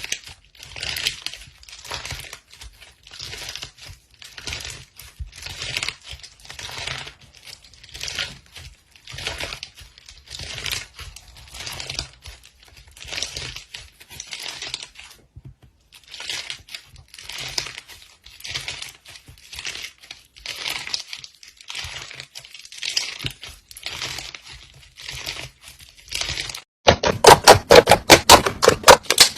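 Slime being worked in regular strokes about once a second, each one a crinkly crackle of tiny pops. Near the end it changes abruptly to much louder, rapid crunching.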